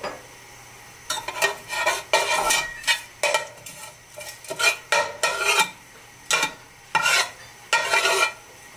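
Metal spoon stirring and scraping in a cooking pot in a run of short, irregular strokes as whole spices are added, with a light sizzle underneath.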